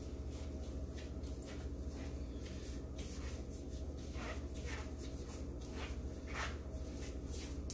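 Gloved hands being wiped with a towel, giving short scattered rustles over a steady low hum.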